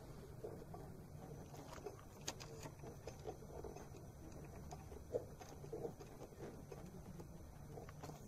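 Faint, scattered clicks and small knocks of a hand working among the engine-bay parts around the EGR valve, over a faint low hum.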